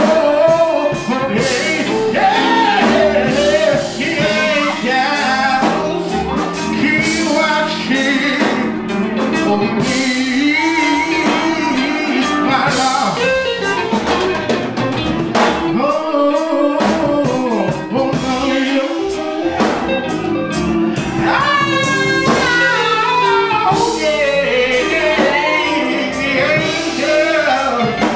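A man singing a gospel song live into a handheld microphone, over instrumental accompaniment with drums.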